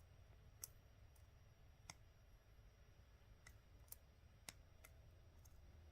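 Faint, sparse clicks of chain-nose pliers against a small metal jump ring as it is worked closed, about half a dozen scattered irregularly over a low steady hum.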